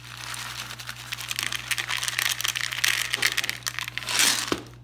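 Sunflower seeds poured from a plastic bottle into a plastic tub: a dense rattle of many small clicks that builds up, loudest about four seconds in.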